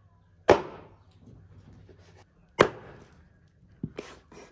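Turkey meat being chopped into pieces: two hard chopping strokes about two seconds apart, then a few lighter knocks near the end.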